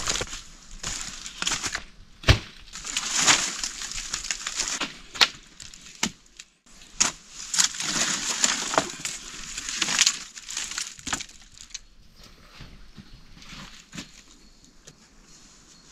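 Dry leaves crunching and rustling underfoot, then bamboo poles clattering and knocking together as they are gathered and handled, with several sharp knocks. Quieter for the last few seconds.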